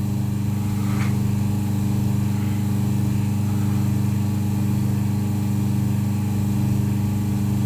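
Vacuum pump of an FA11 OCA laminating machine running with a steady hum, pulling a vacuum in the laminating chamber during its vacuum stage.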